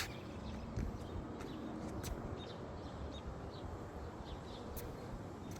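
Faint outdoor ambience: a steady low rumble with a few faint, short bird chirps and occasional light clicks.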